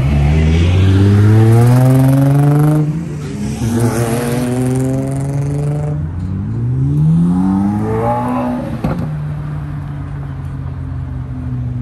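Car engine accelerating hard, its pitch rising, dropping at a gear change and climbing again, then a third rising rev. A sharp crack comes about nine seconds in, followed by a steady lower engine drone.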